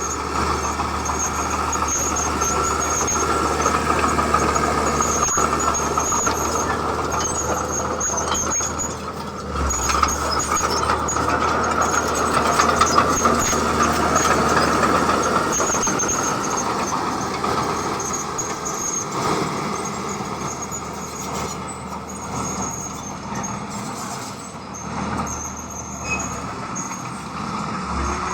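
Heavy construction machinery running, with a steady squeal over the engine noise.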